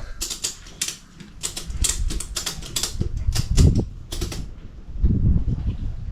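Ratchet strap being cranked tight around a tubeless motorcycle tyre, a run of sharp clicks about three a second, squashing the tyre so its bead can seat when air goes in. Low handling noise follows near the end.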